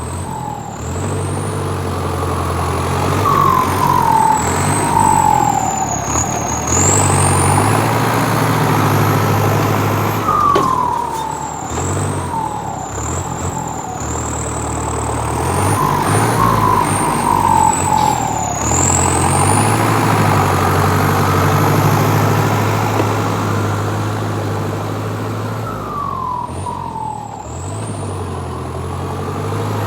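Motor vehicle engine running continuously, its pitch stepping up and down as the vehicle changes speed, with a high whine that rises and falls.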